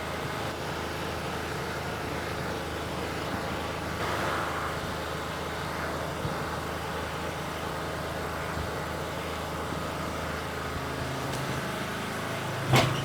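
Steady running noise of a motor vehicle, an even hum with road noise, broken by one sharp thump near the end.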